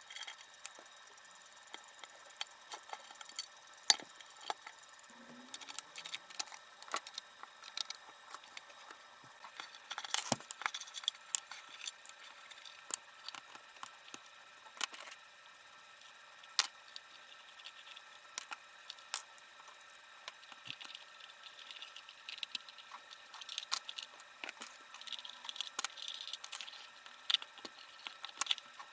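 Irregular light clicks and taps of a wind-up alarm clock and its small parts being handled, with one sharper knock about four seconds in and a busier patch around ten seconds. These are not the even beat of the clock running.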